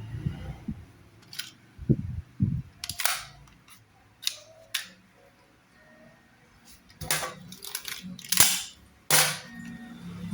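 Replica Glock pistol being handled and worked: a string of irregularly spaced sharp clacks and snaps, a few of them followed by a brief hiss.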